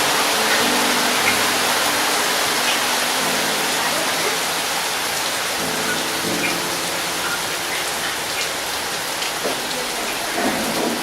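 Rain falling steadily, a dense even hiss of drops on surfaces with occasional single drips standing out.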